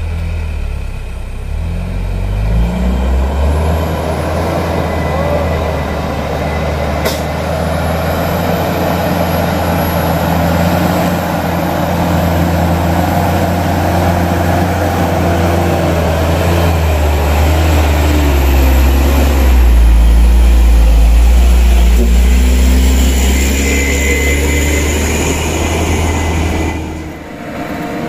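Isuzu truck's 190 PS diesel engine labouring up a steep dirt hill climb, its engine note rising in steps under heavy load and growing loudest as the truck comes close, then dropping away sharply near the end.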